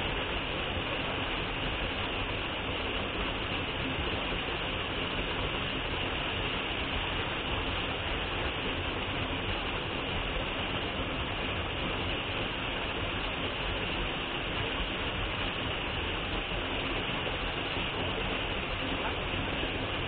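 Waterfall pouring into a rock plunge pool close by: a steady, even rushing of falling water.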